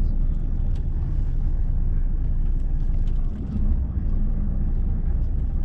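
Lorry's diesel engine running at low speed as the truck creeps forward, heard from inside the cab as a steady low rumble.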